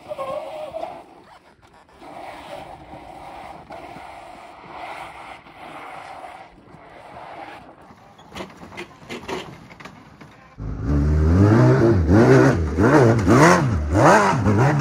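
Gen 2 Suzuki Hayabusa's inline-four engine, faint at first, then about ten seconds in suddenly loud, revving hard in repeated rises and falls of pitch under full throttle as the bike climbs a steep slickrock crack.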